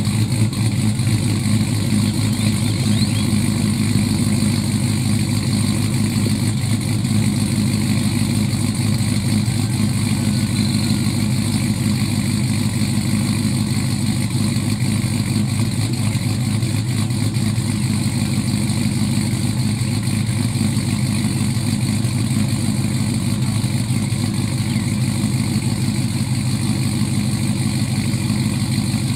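A 2004 Chevy Tahoe's 5.3-litre V8, fitted with a Texas Speed & Performance stage 2 truck cam (212/218 duration, .600 lift, 112 LSA), idling steadily while it warms up after a cold start.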